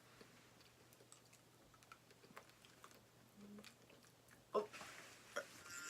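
Faint chewing and mouth clicks of a person eating a chewy candy, with a brief louder sound about four and a half seconds in.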